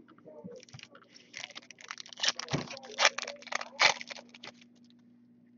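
Foil wrapper of a Topps Chrome trading-card pack crinkling as it is torn open by hand: a dense run of sharp crackles lasting about four seconds.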